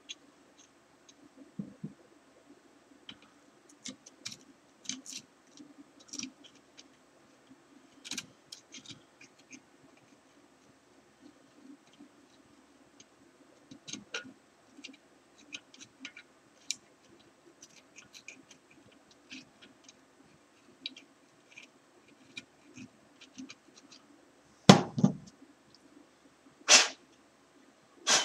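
Screwdriver blade scraping paint off a painted mill casting: scattered short scratches and clicks. Near the end, three louder knocks as the heavy casting is moved on the bench.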